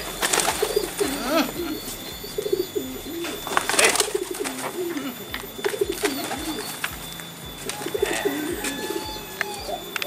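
Domestic pigeons cooing over and over, with a few short bursts of wing flapping.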